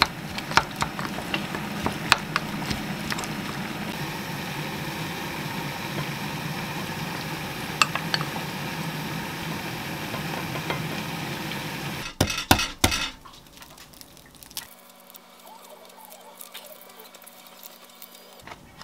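A wooden spoon stirring chopped cucumber and onion with ketchup in a small glass cup, with scattered sharp clinks of the spoon against the glass. Near the end there is a brief cluster of clatters, then quieter handling sounds.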